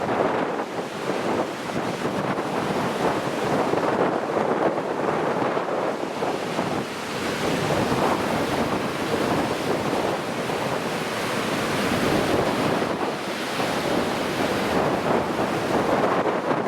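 Heavy surf and strong post-typhoon wind: a continuous rush of breaking waves with wind buffeting the microphone, swelling and easing every few seconds.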